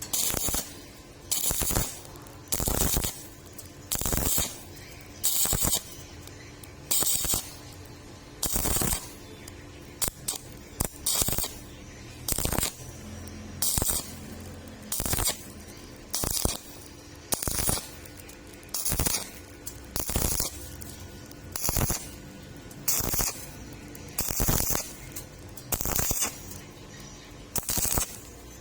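Stick-welding arc crackling and hissing in short bursts, about one every second and a half, as the electrode is struck and lifted again and again on thin 1.2 mm steel square tube.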